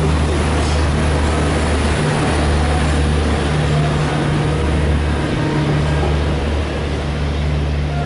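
Passenger coaches rolling past on the rails with a dense rumble and rush, over the steady low drone of an idling WDM3D ALCO diesel locomotive close by.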